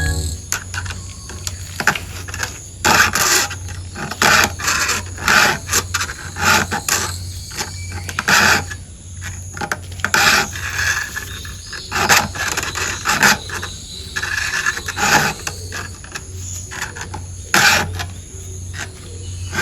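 A 4.0 mm round chainsaw file rasping across the cutters of a saw chain in short strokes, in runs with brief pauses. The cutters are being hand-sharpened because the chain had gone dull.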